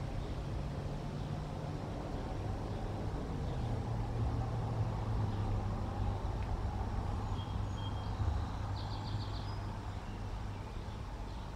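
Outdoor ambience from an eagle-nest camera microphone: a steady low rumble under a hiss, with a few short, high chirps about eight to nine seconds in.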